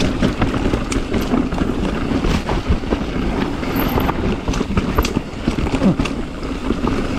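Mountain bike riding fast down a rocky trail: steady tyre and trail noise with many sharp knocks and clatters as the bike hits rocks.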